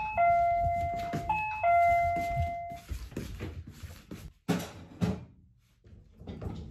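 Electronic doorbell chime rung twice, each ring a two-note 'pinpon': a short higher note, then a lower note held for about a second. About four and a half seconds in come two sharp taps.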